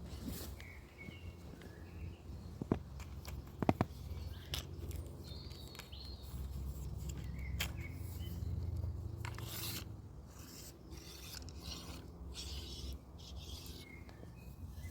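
Outdoor ambience: a steady low rumble on the microphone, with a few short bird chirps scattered through it and a couple of sharp clicks a few seconds in.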